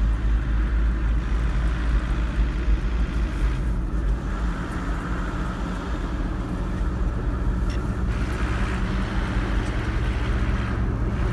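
Car cabin noise while driving slowly on a paved road: a steady low engine and tyre rumble, with a faint engine hum coming in about four seconds in.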